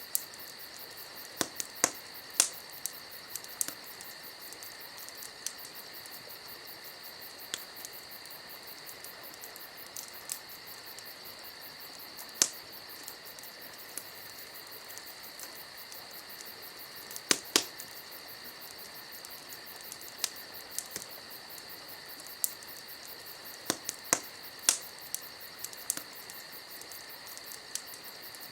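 Crickets chirping steadily, with a wood campfire crackling and popping at irregular moments; a few sharp pops stand out well above the insects.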